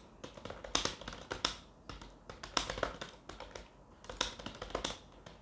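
Computer keyboard typed on at a steady, fluent pace during an online typing test: quick, uneven keystroke clicks, several a second.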